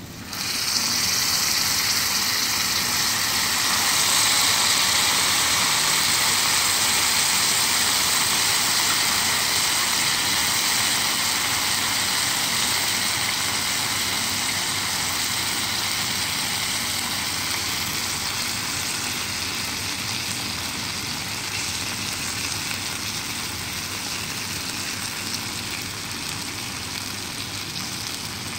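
Steak sauce sizzling on a hot cast-iron sizzle platter under a rib eye: a loud hiss that starts suddenly as the sauce hits the iron, then slowly fades.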